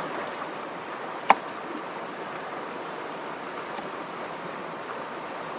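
River water flowing steadily, with one sharp click about a second in.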